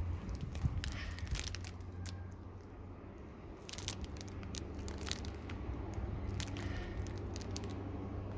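Seatbelt webbing being scrubbed by hand with soap: irregular crackles, clicks and rubbing of the fabric, over a low steady hum.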